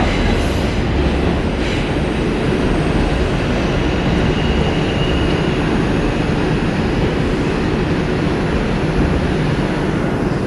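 R142 subway train running through the tunnel, heard from inside the car as a steady loud rumble of wheels on rail. A faint high wheel squeal comes in briefly about four seconds in.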